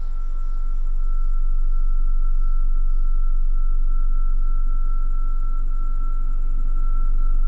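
A loud, low rumbling drone that swells in over the first second and then holds steady, with a steady high whistle-like tone above it. Faint cricket chirps fade out early on.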